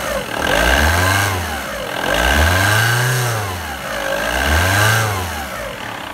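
VW Golf 1.9 SDI (AQM) four-cylinder diesel engine revved three times, the pitch rising and falling each time, then settling back toward idle near the end. It is the first test run of the engine on a freshly fitted timing belt.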